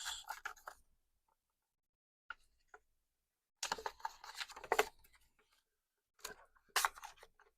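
Handling of a paper user manual and cardboard knife packaging: short bursts of rustling and light clicks and taps, with quiet gaps between.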